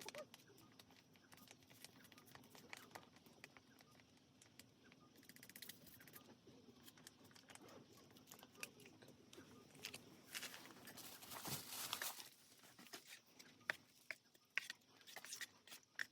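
Near silence with faint scattered clicks and rustling, like small objects and packaging being handled, a little louder for a couple of seconds about two-thirds of the way in.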